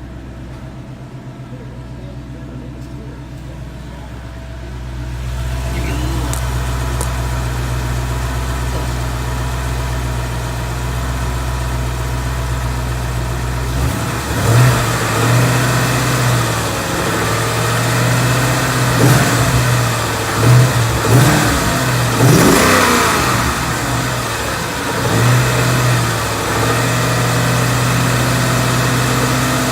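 2014 Ford Coyote 5.0 V8 running after a cold start. It idles steadily, grows louder about five seconds in, then from about halfway is revved in several short blips. Checked for the Coyote tick or piston slap, it shows none that the owner can hear, and he judges it healthy.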